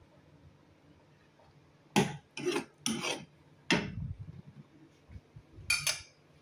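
Steel ladle scraping against a steel kadhai, metal rubbing on metal, in a handful of short rasping strokes starting about two seconds in, with two more near the end.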